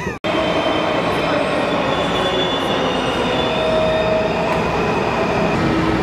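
Washington Metro subway train in the underground station: a loud, steady rumble with faint thin squealing tones above it.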